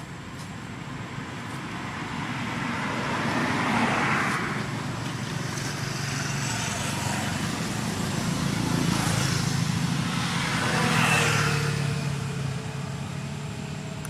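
Road traffic: motor vehicles passing one after another, the sound swelling and fading about three times over a steady low hum.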